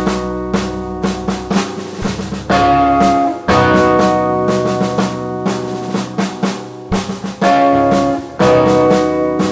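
Live music with a drum kit: sustained chords that change every second or two, under frequent snare and bass drum hits.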